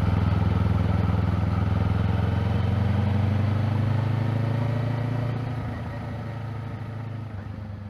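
Kawasaki Z500 motorcycle's parallel-twin engine on its stock exhaust, running at a steady low note, then fading away over the last few seconds.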